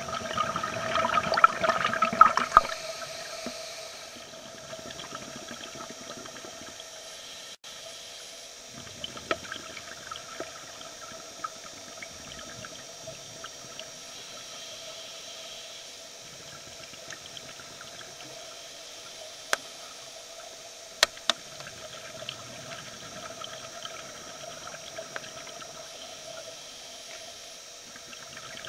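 Underwater sound of scuba regulator exhaust bubbles: a loud crackling gush of exhaled bubbles in the first couple of seconds, then a steady hum with faint bubbling now and then. A few sharp clicks come near the end.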